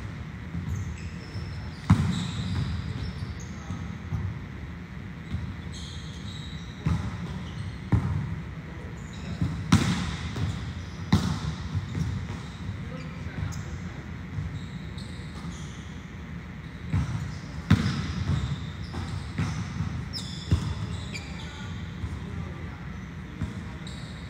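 Volleyballs being hit and bouncing on a hard court during serve-receive practice: irregular sharp smacks a second to several seconds apart, the loudest near the middle and about two-thirds through.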